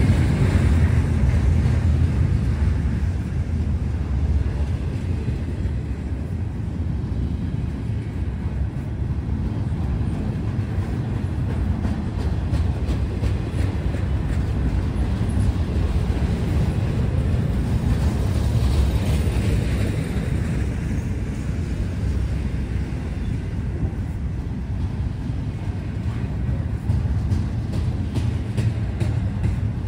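Cars of a long Norfolk Southern freight train rolling past: a steady low rumble of steel wheels on rail, with faint clicks from wheels over rail joints in the second half.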